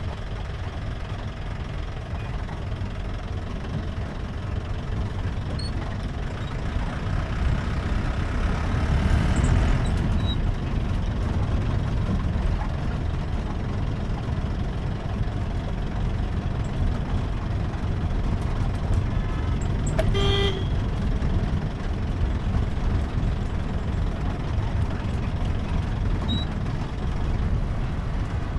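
Jeep engine running under way, heard from on board, with low engine and road noise that grows louder for a few seconds near the start. A short vehicle horn toot sounds once, about twenty seconds in.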